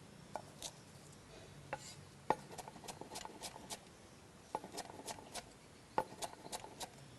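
Knife chopping garlic chives on a cutting board: faint, sharp taps in short quick runs.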